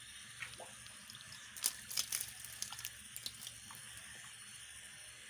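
A quick run of small clicks and taps, most of them between about one and a half and three and a half seconds in, from a plastic water-test vial being handled and rinsed while a sample is drawn. A steady faint hiss lies underneath.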